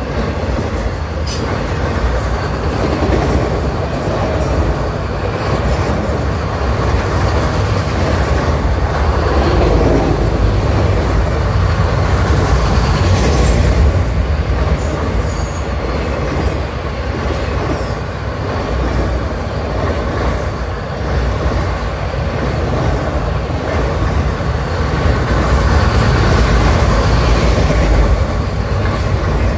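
Freight train of autorack cars rolling past close by: a steady rumble and clatter of steel wheels on the rails, with a few sharp clanks from the cars.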